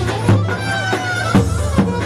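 Traditional folk dance music: heavy drum beats over a steady bass and a high, winding melody instrument.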